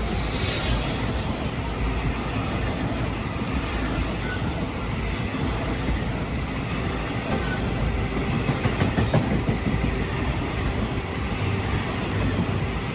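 Train running along the track: a steady rumble of wheels on rails, a little louder for a moment about two-thirds of the way through.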